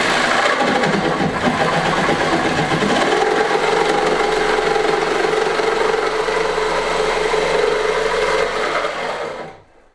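Corded jigsaw cutting a sink cut-out in a wooden worktop, running steadily, then stopping near the end.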